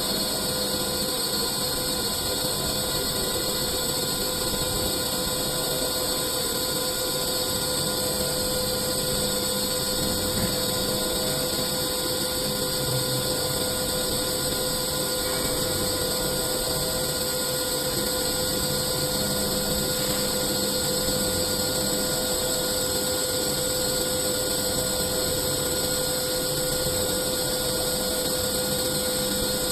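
CNC lathe running steadily while machining, a continuous machine noise with a steady whine held at several fixed pitches.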